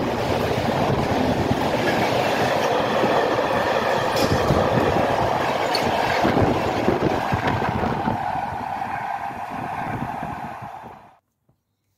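Freight train of empty flat wagons rolling past at speed, its wheels clattering over the rail joints. It eases off as the last wagons pull away, then cuts off suddenly near the end.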